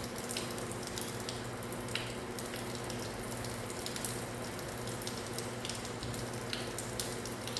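Steady rain with scattered drops pattering and ticking, over a constant low hum.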